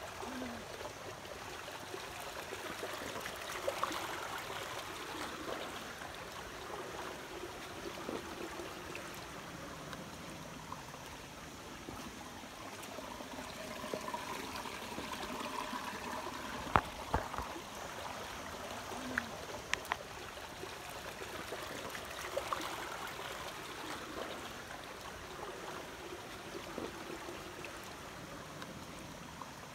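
Shallow rocky stream flowing and trickling, with a few sharp knocks, the loudest about seventeen seconds in.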